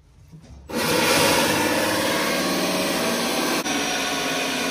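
Cordless drill boring a hole through melamine-faced formwork board: after a brief pause it starts under load about half a second in and runs steadily, the motor's whine under the noise of the bit cutting through the board.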